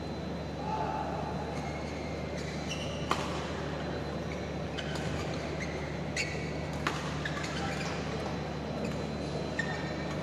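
Badminton rackets striking a shuttlecock in a rally, several sharp cracks a second or two apart, the loudest about three seconds in. Short high squeaks of shoes on the court floor come between the hits, over a steady hall hum.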